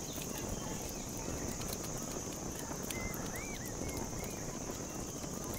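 Forest ambience: a steady high insect drone, with a few short bird chirps from about halfway through.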